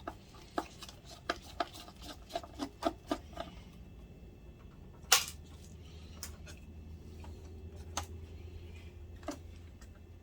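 Small clicks and taps of a screwdriver, screws and plastic and metal parts being handled while the projector's optic assembly is unscrewed: a quick run of about ten clicks at first, one sharper click about five seconds in, then a few scattered taps.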